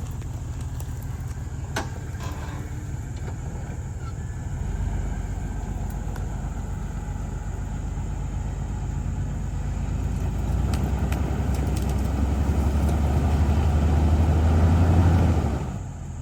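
Off-road vehicle's engine running under load, growing louder in steps and then easing off sharply just before the end, with a few faint clicks.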